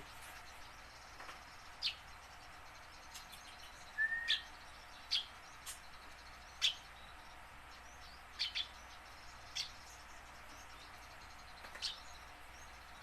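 Eurasian tree sparrow giving single short chirps, about ten of them at irregular gaps, mostly quick falling notes with one lower whistled note about four seconds in, over a faint steady hiss.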